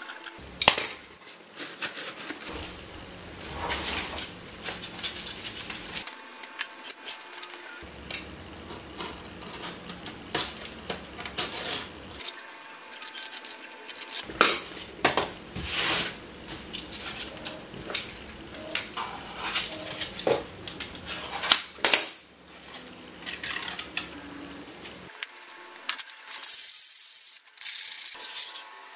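Cutter knife scraping and scratching over 3D-printed lightweight PLA, with many sharp clicks and snaps as stringing and brims are cut and broken off the printed parts. Near the end there is a steadier rasping hiss of rubbing.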